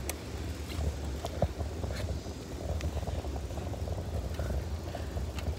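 Wind buffeting a phone's microphone, a steady low rumble, with a few faint clicks.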